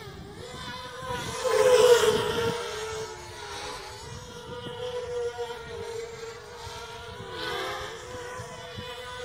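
250-size racing quadcopter's motors and propellers buzzing in flight, a steady drone that swells loudest about two seconds in and again near the end, its pitch dipping briefly now and then as the throttle changes.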